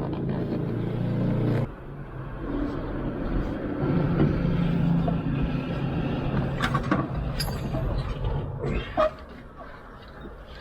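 A low, steady engine-like hum that stops abruptly about a second and a half in and returns a couple of seconds later, with a few sharp clicks and knocks near the end.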